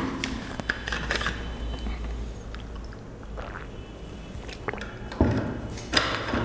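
Room noise: a steady low hum with scattered small clicks and scrapes, and a louder knock about five seconds in and another just before the end.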